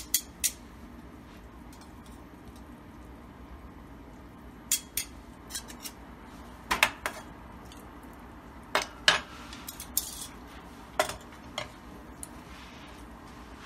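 Utensils clinking and scraping against a crock pot while a beef roast is prodded and cut in the pot, about a dozen sharp, irregular clinks.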